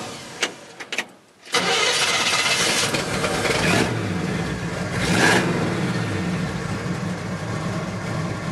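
The 1972 Chevrolet C10's factory 350 small-block V8 starting: a few clicks, then the engine catches about a second and a half in, is revved twice and settles into a steady idle. It runs great.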